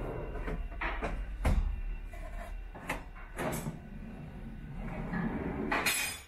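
Plywood drawers on metal side-mount slides being pulled open and pushed shut: a rolling, sliding noise broken by several sharp knocks as the drawers hit their stops. The loudest knock comes about a second and a half in.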